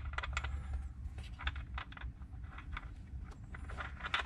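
Light, irregular metallic clicks and taps of hand tools and a small bolt being handled while the last intake-manifold bolt is taken out, over a steady low hum.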